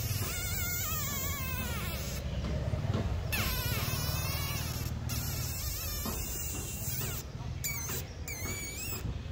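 Insect buzzing with a wavering, gliding pitch that comes and goes, over a steady low hum.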